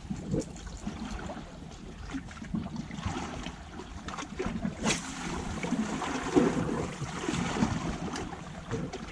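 Sea washing against a rocky shore, with wind buffeting the microphone. A single sharp click comes about five seconds in.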